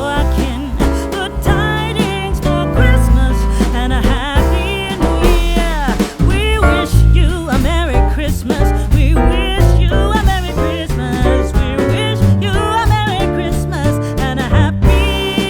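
Background music: a song with a sung vocal over bass notes.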